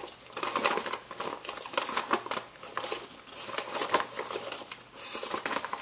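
Plastic bag of frozen chopped kale crinkling as it is shaken out, with frozen pieces dropping into the pot in irregular crackles.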